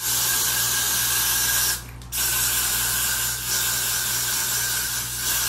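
Got2b Glued aerosol hair spray hissing in two long sprays, with a short break about two seconds in.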